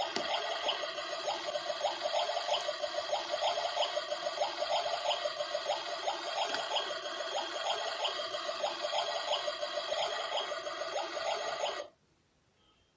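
Water running at a toy kitchen set's sink tap, a steady rushing trickle that cuts off abruptly near the end.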